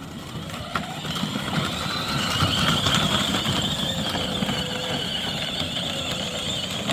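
L8 Apex 24-volt kids' ride-on car driving off under its four electric drive motors: a steady high whine over a rough rolling rumble from the wheels, building over the first couple of seconds and then holding.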